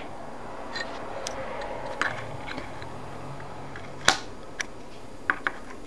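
Dull scissors snipping at a Zippo lighter's wick: a few scattered short clicks, the sharpest about four seconds in.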